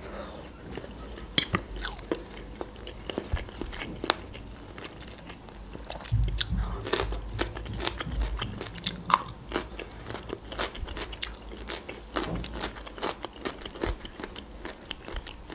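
Close-miked chewing of a chicken cutlet, with many short wet mouth clicks, and crunching bites of fresh cucumber.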